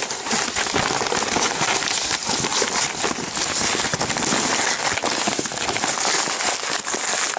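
Brown paper crinkling and rustling as hands fold and scrunch it closed around a bundle of hay, a dense run of crackles.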